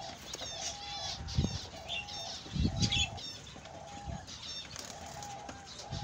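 Budgerigars chirping and warbling in short, bending high notes, with a short lower note repeating about every half second beneath them. A few dull thumps stand out among the calls.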